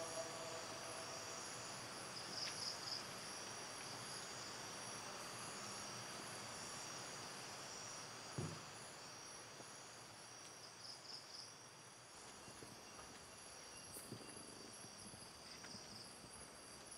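Night insects chirring steadily in several high, unbroken tones. A single dull thump comes about eight seconds in, with a few faint taps near the end.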